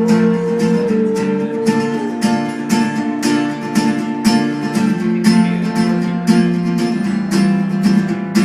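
Acoustic guitar strummed in a steady rhythm, with chords ringing between the strokes and no singing.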